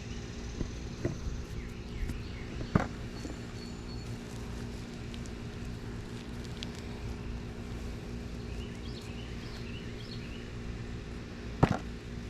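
Two sharp knocks, one about three seconds in and one near the end, over a steady low hum, with a few lighter ticks and faint high chirps.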